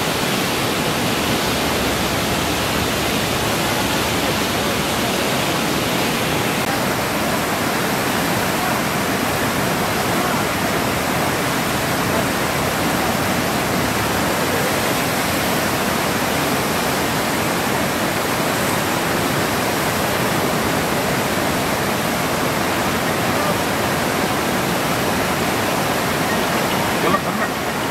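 Floodwater of a swollen, muddy river rushing past in a steady, unbroken wash of churning rapids.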